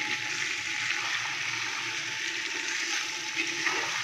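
Raw chicken pieces sizzling in hot ghee in a clay handi as they are stirred with a spoon, a steady hiss.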